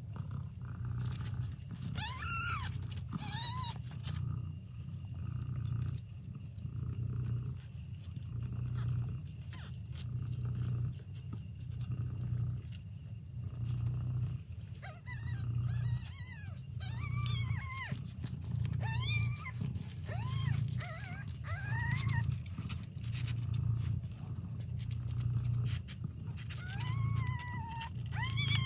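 Kitten meowing in high, arching cries, a couple near the start, a run of them in the middle and more near the end, over a low cat purr that swells with each breath about every two seconds.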